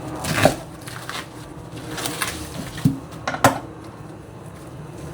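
Kitchen handling clatter: a few sharp knocks and clinks of dishes, pots or utensils, the loudest about half a second in and again at about three and a half seconds.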